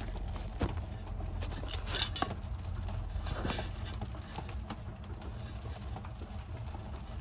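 A paintbrush working acrylic paint on canvas: irregular soft scratches and small taps, with a louder brushy stroke about two seconds in and another about three and a half seconds in, over a steady low hum.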